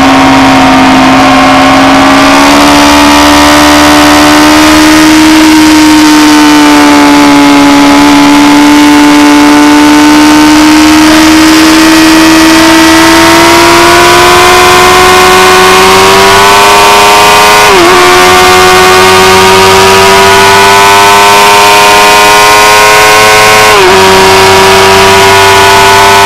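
Suzuki GSX-R inline-four engine held at high revs under acceleration, its pitch climbing slowly, with two quick upshifts about 18 and 24 seconds in, each a brief dip in pitch.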